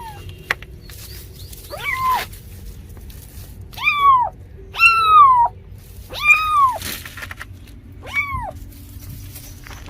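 A cat meowing repeatedly: five separate meows, each rising and then falling in pitch, spaced about a second or two apart.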